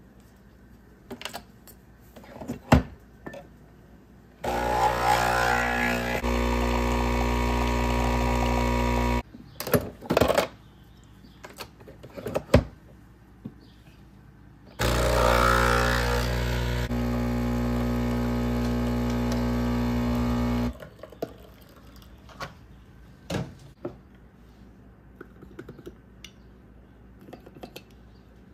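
Nespresso capsule machine's pump running twice to brew two capsules. Each run lasts about five or six seconds, rough at first and then settling into a steady hum. Sharp clicks and knocks come before and between the runs as the capsules are handled and loaded.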